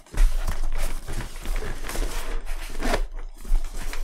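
A fabric camera sling bag being handled and turned close to the microphone: dense rustling and scraping of the bag material, with a low rumble of handling noise.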